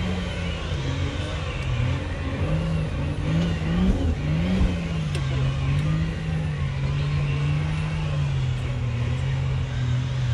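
A four-wheel-drive competition truck's engine revving up and down as it climbs a steep, rutted track, settling into a steadier note about halfway through.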